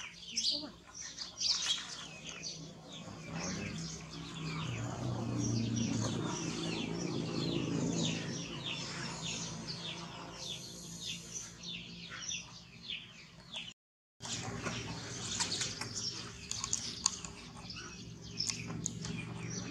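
Small birds chirping continuously in the background, with a low hum that swells and fades through the middle.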